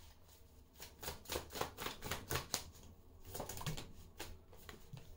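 Tarot cards being handled, shuffled and drawn from the deck by hand: a string of soft, quick card clicks and flicks, several a second.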